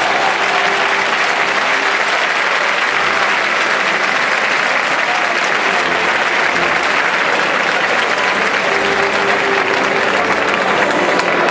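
A large crowd applauding steadily, with faint voices mixed in underneath.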